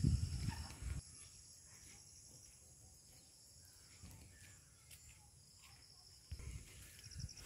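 Steady high-pitched chirring of insects, with a regular pulse in it. A low rumble on the microphone in the first second is the loudest part, and a few soft low thumps come near the end.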